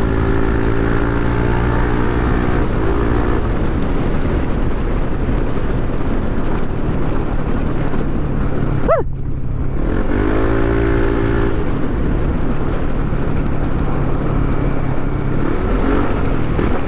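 Yamaha NMAX 155 scooter's single-cylinder engine running at a steady cruising speed during a ride, under constant wind rumble on the microphone. A steady engine drone stands out near the start and again about ten seconds in, with a brief sharp sweep shortly before it.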